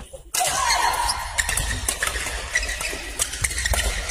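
Badminton doubles rally: sharp racket strikes on the shuttlecock and shoes squeaking on the court floor, over a steady low hall rumble.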